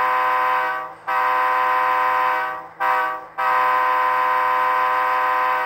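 HO-scale Atlas SD35's Tsunami 2 sound decoder playing a diesel locomotive air horn in the grade-crossing pattern through the model's speaker: the tail of a long blast, a second long blast, a short blast about three seconds in, then a final long blast.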